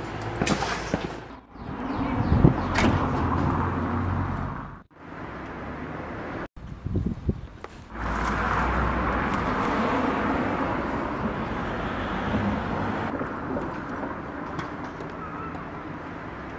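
Outdoor street sound: a steady hum of traffic, with knocks and rustles of bags being carried and loaded into a car boot. The sound cuts off abruptly several times between shots.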